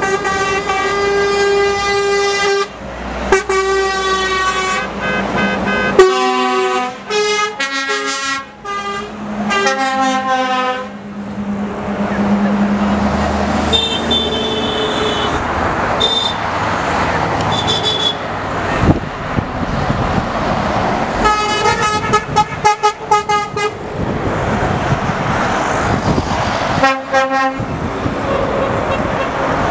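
Lorry air horns blowing in long blasts, several at once, over the diesel engines and tyre noise of heavy trucks driving past. The horns stop for about ten seconds in the middle and blow again near the end.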